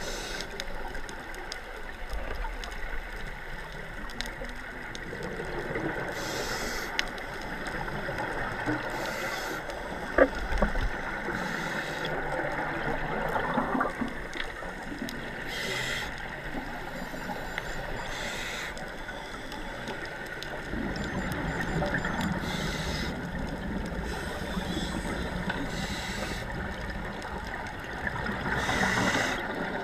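Underwater sound of scuba breathing: a steady watery hiss and low rumble, broken every few seconds by the bubbling rush of a regulator exhalation. There is one sharp knock about ten seconds in.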